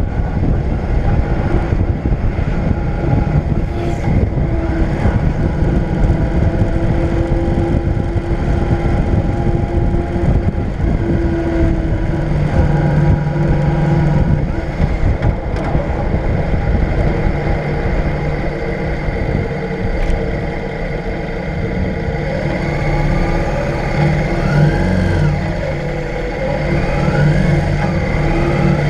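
Motorcycle engine running with wind and road noise while riding, then easing off as the bike turns in and slows. It runs quieter and steadier in the last several seconds as the bike comes to a stop.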